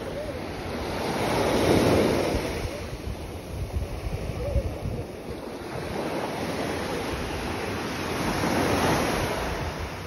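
Small ocean waves breaking and washing up a sandy beach, swelling twice, about two seconds in and again near the end, with wind buffeting the microphone.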